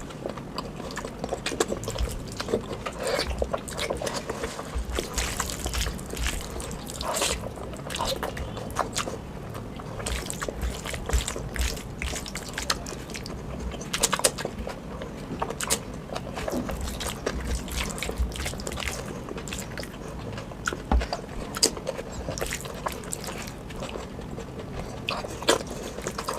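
Close-up eating sounds of oily mutton curry: wet chewing and lip smacking with many irregular small clicks.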